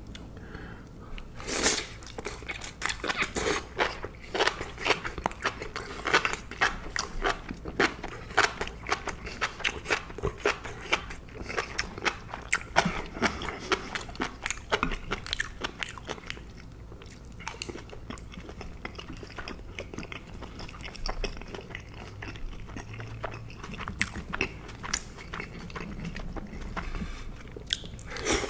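Close-up mouth sounds of a person chewing enoki mushrooms: a dense run of wet, squelchy bites and smacks, thinning out and getting softer in the second half.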